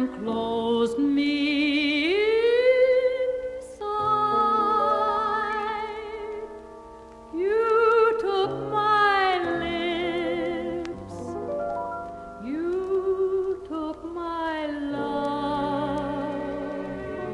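A female vocalist sings a slow ballad with a small orchestra on a vintage LP recording. She holds long notes with a wide vibrato and slides up into three of them, with the orchestra sustaining chords underneath.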